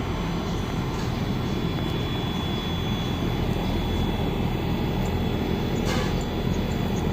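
Air conditioner running with a steady fan and compressor hum and a faint whine above it. The unit is low on refrigerant from a leak, which has iced up its piping. There is a faint knock about six seconds in.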